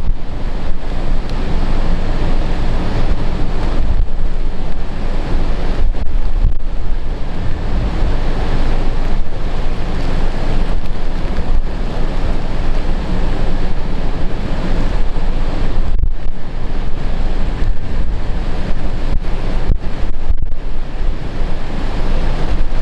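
Heavy typhoon surf crashing on the shore, under strong wind buffeting the microphone.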